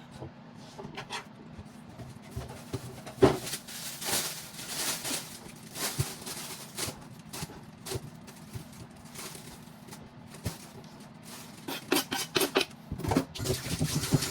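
Kitchenware being handled: bowls, plates and metal utensils clinking and knocking at an irregular pace, with a sharp knock about three seconds in and a quick run of clinks near the end.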